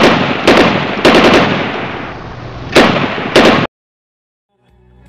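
Title sound effect of gunfire: five bursts of rapid shots, each trailing off in a long fading echo, cutting off suddenly about three and a half seconds in. Faint music fades in near the end.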